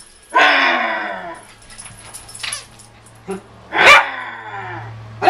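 A toy horn blown once, one drawn-out note falling in pitch about half a second in. Then a dachshund puppy gives one loud sharp bark near four seconds that trails into a falling whine, and barks again at the very end.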